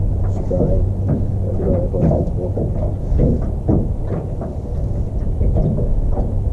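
Wind rumbling on the camera's microphone, with a steady low hum underneath that fades out about three seconds in.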